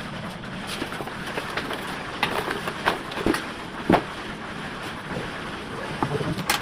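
A handful of short, irregular clicks and knocks over a steady background hiss, the sharpest near the end.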